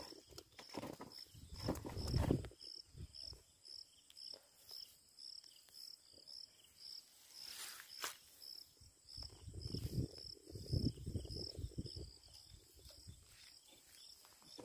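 An insect chirping steadily, short high chirps about two a second. Low rumbling thumps come near the start and again past the middle, with one sharp click around the middle.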